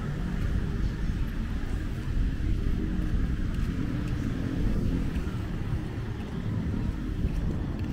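Outdoor street ambience: a steady low rumble of road traffic, with a faint hiss above it.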